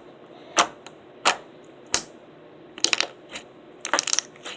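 Slime being poked and pressed, giving sharp pops and crackles: a few single pops roughly every two-thirds of a second, then quick clusters of crackles later on.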